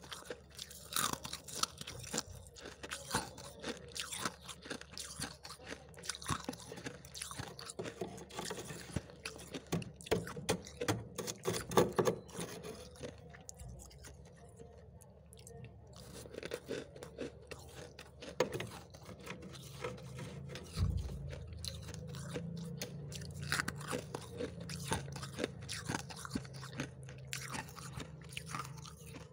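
Soft freezer frost crunching as a metal spoon digs into and scoops it, in quick, irregular crunches. A low steady hum comes in about two-thirds of the way through.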